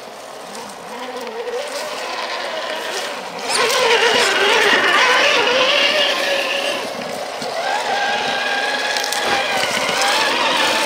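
1/10-scale RC crawler's electric motor and geared drivetrain whining, the pitch rising and falling with the throttle as the truck climbs over rocks. It gets much louder about three and a half seconds in.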